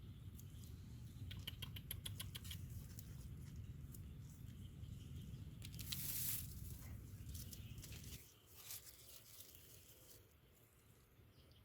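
Light patter and scrabbling of small animals moving about, with a quick run of clicks early on and a short hiss near the middle, over a low rumble that cuts off about eight seconds in.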